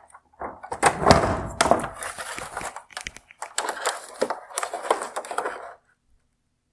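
Plastic headlight parts being handled: the cut-off lens and front bezel of a 2017 Hyundai Tucson xenon headlight are pulled away from the housing and set down, with scraping and rustling broken by many sharp clicks and knocks. The handling stops shortly before the end.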